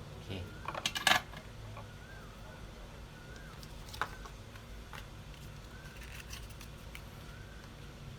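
Small metal tools being handled on a repair bench: a quick cluster of sharp clicks about a second in and one more click at about four seconds, over a steady low hum.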